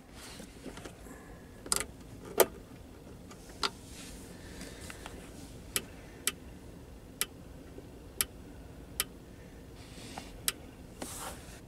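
About ten sharp, separate clicks at irregular intervals as the front-panel controls of a Midland Alan 78 Plus Multi CB radio are worked to switch it to CEPT FM channel 31, with a short burst of hiss near the end.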